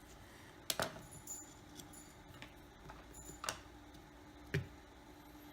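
Sparse light clicks and taps of small repair tools and parts during a smartphone teardown, with three sharper clicks: near one second, midway, and a little past four seconds, over a faint steady hum.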